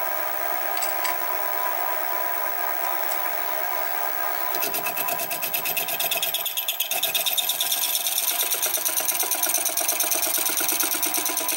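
Sieg SX2P mini mill running with a slitting saw spinning, a steady whine; about four and a half seconds in the saw starts cutting into a metal bar held in the vise, adding a fast, evenly repeating cutting sound that continues to the end.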